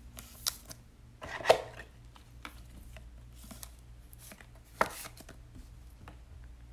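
Trading cards and their plastic holders being handled on a table: scattered light taps and rustles, with sharper knocks about half a second in, about a second and a half in, and near five seconds in.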